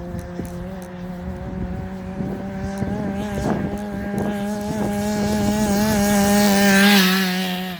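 A 1/5 scale RC car's small two-stroke petrol engine running at high speed during its break-in, its note rising slightly and getting louder, then dropping sharply near the end.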